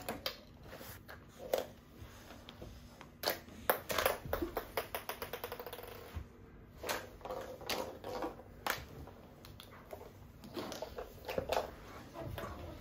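Small plastic toy figures and balls clattering on a wooden floor. About four seconds in, a small plastic ball bounces on the floor, its bounces coming quicker and quicker as it settles.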